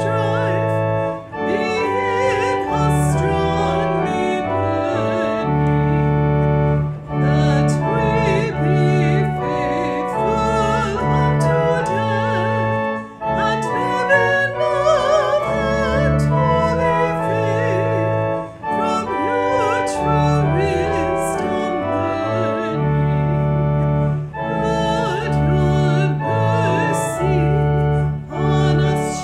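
A hymn verse sung with organ accompaniment: held organ chords over a steady bass line, with a singing voice wavering in vibrato above, pausing briefly between phrases.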